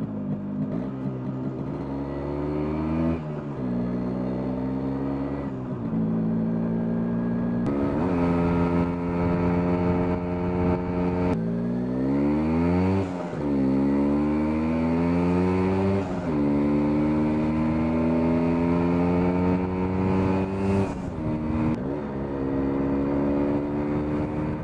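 MZ ETZ 250's single-cylinder two-stroke engine pulling hard under the rider. Its pitch climbs through each gear and drops back at several shifts, with wind rushing past.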